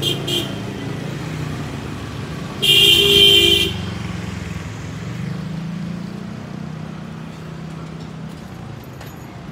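Street traffic with a steady low engine drone of passing vehicles. Two short horn beeps sound at the very start, and about three seconds in a loud vehicle horn blasts for about a second.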